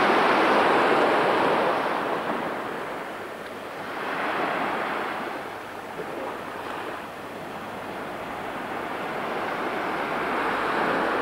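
Small waves breaking and washing up a sandy beach, the surf swelling and easing every few seconds. It is loudest in the first couple of seconds.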